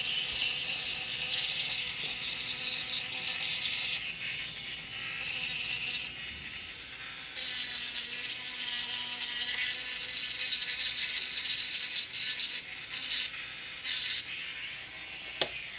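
Rotary dental handpiece spinning a small polishing point against an acrylic oral appliance: a high, hissy grinding over a faint steady motor whine. It swells and drops as the point is pressed on and lifted off, ending in a few short bursts.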